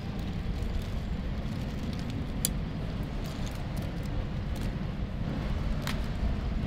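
Steady low outdoor rumble, with two sharp snaps from a rope-pulled pole pruner being worked overhead: one about two and a half seconds in, one near the end.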